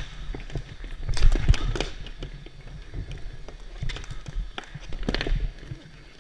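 Clatter of ball-hockey play on a plastic tile floor: sticks and ball knocking on the tiles and players' shoes running, in a quick flurry of clicks about a second in and another about five seconds in.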